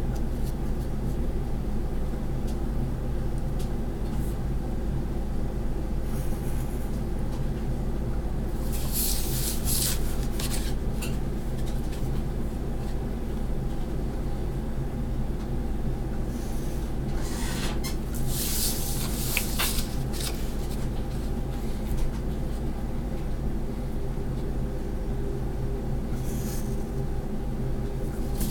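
Pen tip scratching along a ruler's edge on paper, drawing straight lines in short strokes of about a second each: a few about a third of the way in, a cluster a little past halfway, and more near the end. A steady low hum runs underneath throughout and is the loudest sound.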